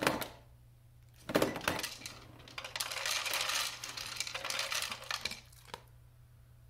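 Two knocks as a German Shepherd's nose presses the button of a Wi-Fi automatic pet feeder. Then dry kibble rattles into the feeder's plastic tray for about two and a half seconds, dying away near the end.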